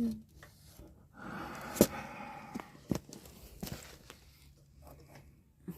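A scraping rasp, then a few sharp clicks and knocks of a tool against metal in the pop-up camper's lift crank mechanism, while its chain is held with a screwdriver.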